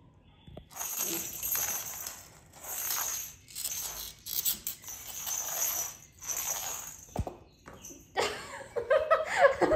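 Rustling noise with a light metallic jingle, in a run of short bursts about a second apart; a woman's voice starts near the end.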